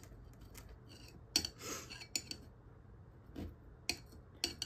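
Hands working at a glass terrarium jar: a few scattered sharp clicks and light taps against the glass, with a brief scrape about a second and a half in, over a faint steady low hum.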